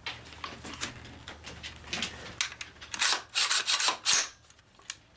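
Rubbing and scraping handling noises, a run of louder scuffs about three to four seconds in, then quieter.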